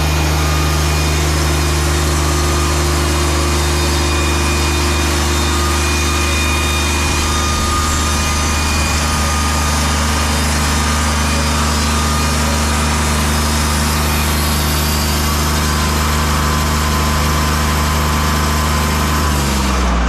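Wood-Mizer LT50 hydraulic sawmill running steadily, its band-saw head cutting along a stack of red pine boards to trim off the live edges. Near the end the engine note falls as the mill slows.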